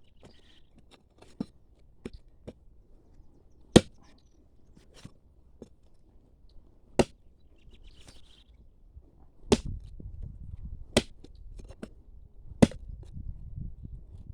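A hoe chopping into soil and roots, with irregular sharp strikes a second or more apart. After about nine seconds in, the strikes are joined by the scrape and crumble of loosened earth.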